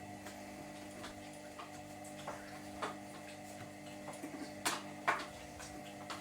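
Washing machine running: a steady hum with scattered sharp clicks and ticks, the loudest a little before and just after the five-second mark.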